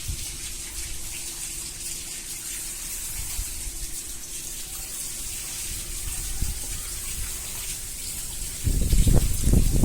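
Steady hiss of falling rain, with a faint steady hum underneath for most of it. A louder, irregular low rumbling comes in near the end.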